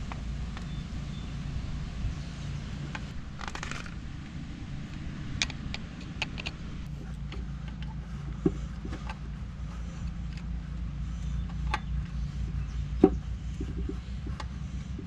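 An engine running steadily at idle, with a few sharp clicks and knocks over it, the loudest near the end.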